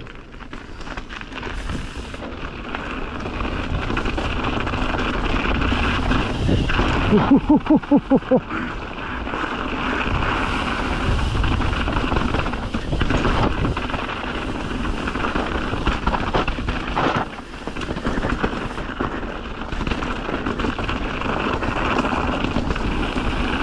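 Mountain bike descending a dirt trail: wind rushing over the microphone and tyres rolling over dirt and rock, building over the first few seconds. About a third of the way in, a short run of fast pulsing tones stands out as the loudest sound.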